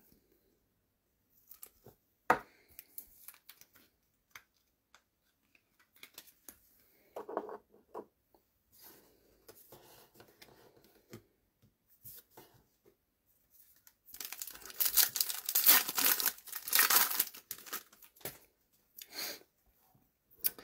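A trading-card pack wrapper being torn open, a loud crinkling tear lasting a few seconds about two-thirds of the way through, after scattered light clicks and rustles of cards being handled.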